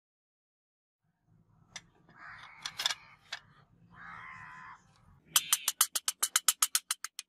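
Two stretches of scraping as a slotted wooden handle block is slid along a sword's tang, then from about five seconds in, rapid sharp taps, about six a second, as the block is driven onto the tang through a metal pipe.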